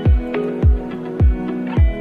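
Electronic background music with a steady, deep kick-drum beat about twice a second under held synth notes.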